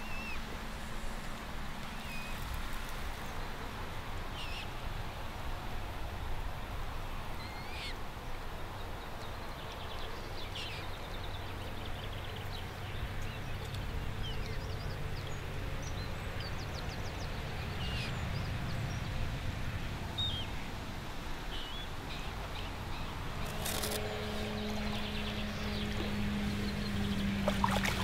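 Outdoor lakeside ambience: scattered short bird chirps over a steady low rumble. About four seconds before the end a steady low hum sets in, with a few sharp clicks.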